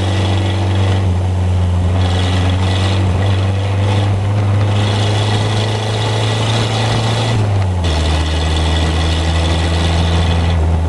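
Ford Model B roadster's engine running through an open header with no muffler while driving at a steady speed. The low exhaust note holds steady, then drops in pitch about three-quarters of the way through.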